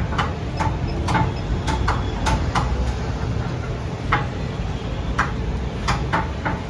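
Knife blade scraping and clicking against a goat's head on a wooden chopping block: a string of sharp, irregular clicks, about two a second, over a steady low rumble.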